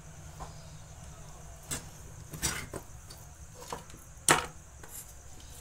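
Handling noise on a wooden speaker cabinet: a few scattered clicks and knocks, with one sharp knock about four seconds in, over a low steady hum.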